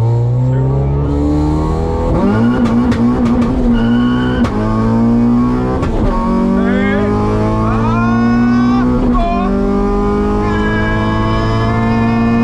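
Naturally aspirated H2B Honda Civic on E85 accelerating hard from first gear: the engine note climbs with revs, then drops back at each upshift, about three times, before climbing again.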